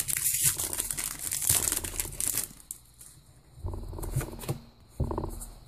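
The foil wrapper of a Pokémon TCG booster pack crinkling and tearing as it is pulled open by hand, a pack that is tough to open. The crinkling dies down about two and a half seconds in.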